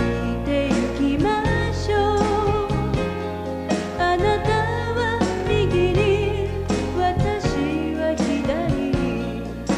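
A young woman singing a late-1980s Japanese idol pop song into a microphone, her held notes wavering with vibrato, over pop backing music with a steady beat and bass.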